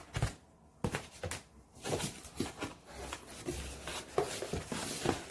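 Packaging being handled during unboxing: a few knocks in the first second or two, then rustling and crinkling with small clicks.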